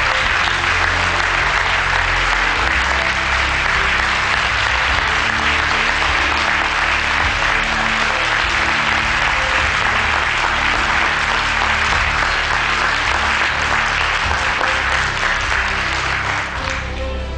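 Audience applauding steadily for about sixteen seconds, starting abruptly and fading away near the end, with music playing underneath.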